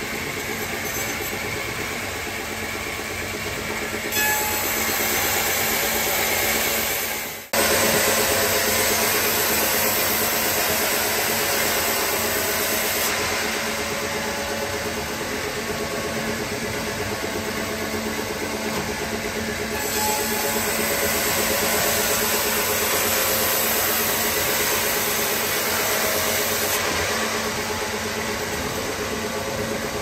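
Band sawmill running, with a steady motor hum under the hissing noise of the blade cutting through a log. The cutting noise swells and eases as the cuts go, with a sudden short break about seven seconds in.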